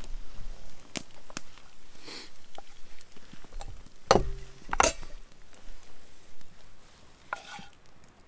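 Wooden spoon scraping and knocking against a frying pan as food is served out of it, a few sharp knocks among short scrapes, the loudest knock about four seconds in with a brief ring.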